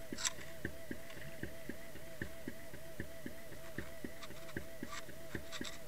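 A rhythmic mechanical sound picked up underwater by a camera's housing: a wavering tone that rises and falls about four times a second, with a tick on each cycle and a few sharper clicks.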